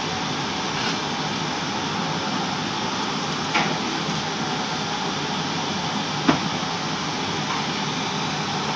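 Steady fan-like rushing noise, with two short sharp knocks a few seconds apart, the second the louder, as a casket on a wheeled metal cart is moved.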